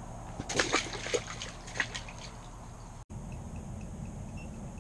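Water splashing and sloshing in a run of short bursts as a caught fish thrashes at the ice hole. The sound stops abruptly about three seconds in.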